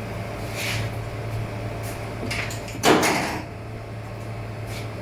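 Handling on a kitchen counter while a banana is readied for slicing: a couple of brief scrapes, then one loud knock about three seconds in that dies away quickly, over a steady low hum.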